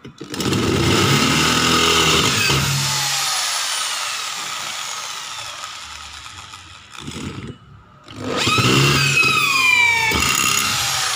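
Corded electric drill with a resharpened Nachi bit drilling into thin galvanized square steel tubing. The motor starts, runs, and slows with a falling whine until it stops about two-thirds of the way through, then starts again. The resharpened bit cuts through the tube, though it is not as sharp as when new.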